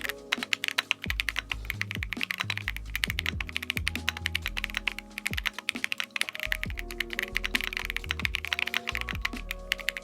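Fast, continuous typing on a Keychron Q1 Pro mechanical keyboard with K Pro Banana tactile switches, gasket-mounted on a polycarbonate plate: a dense run of keystroke clicks.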